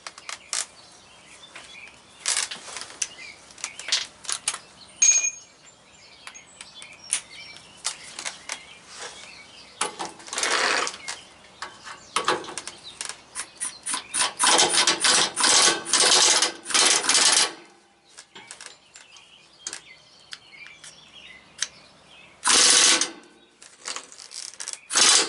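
Pneumatic impact wrench on the driveshaft bolts, run in a series of short bursts, the longest about three seconds in the second half. Metal clicks and clinks of tools come between the bursts.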